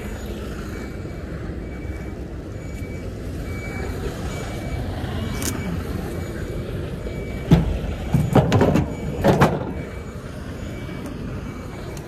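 Articulated lorry backing up to a loading dock: its reversing alarm gives evenly spaced short high beeps over the diesel engine's steady low running. About halfway through, a quick series of loud knocks.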